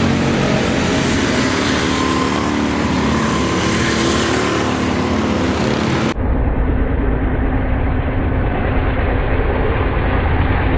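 Go-kart engines running steadily and loudly. About six seconds in, the sound changes abruptly and turns duller.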